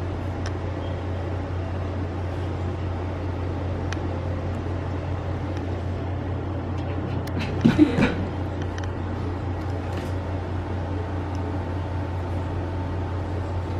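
A steady low hum, with a brief louder sound about eight seconds in.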